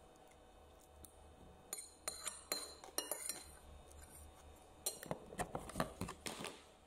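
A metal spoon scraping and clinking against a ceramic plate while scooping up fried rice, in two short spells of quick clicks and scrapes, the second about five seconds in.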